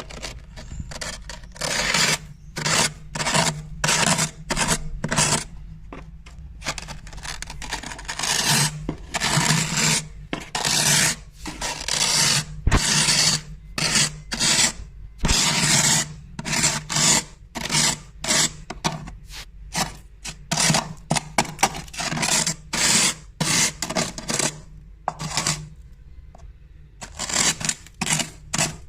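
Frost built up inside a freezer being scraped with the edge of a glass, in quick, crunchy scraping strokes one after another, with a short lull near the end.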